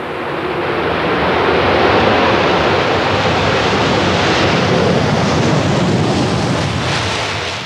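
British Airways Concorde's four Olympus 593 turbojets with reheat at full take-off power: a loud, even jet roar as the aircraft lifts off and climbs away. It swells over the first couple of seconds, holds, and eases off near the end.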